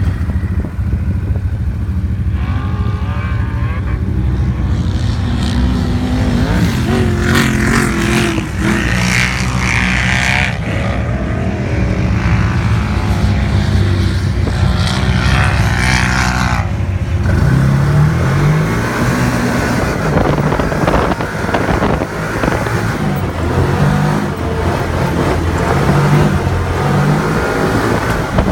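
Can-Am side-by-side UTV driven over rough ground: the engine runs under load, its pitch rising and falling repeatedly with the throttle, over a steady wash of wind and terrain noise.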